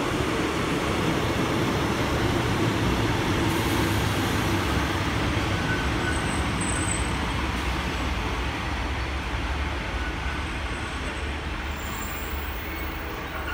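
Class 150 Sprinter diesel multiple unit running into the platform: a steady rumble of its underfloor diesel engines and wheels on the rails, easing off toward the end as the train slows.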